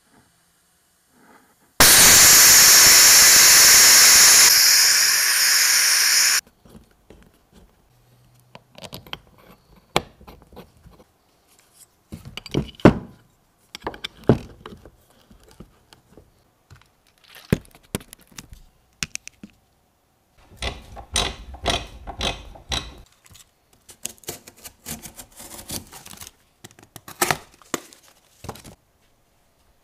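A loud, steady spray hiss lasting about four and a half seconds that cuts off suddenly, from pressurised spray used in a brake caliper rebuild. Scattered clicks, knocks and scrapes of caliper parts and hand tools being handled on a workbench follow.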